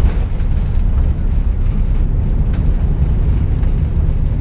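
Airbus A340-300 cabin noise during the landing rollout: the engines and the wheels on the runway make a loud, steady, deep rumble.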